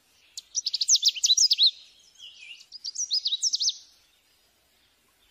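Birdsong: a songbird singing quick, high chirps and whistled notes in two bursts, dying away near the end.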